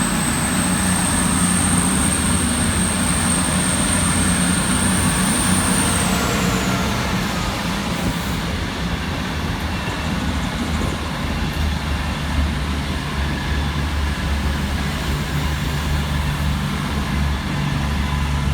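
Two coupled Class 221 Super Voyager diesel-electric trains pulling away, their underfloor diesel engines running steadily under load. A high thin whine rises slightly, then falls away about six seconds in.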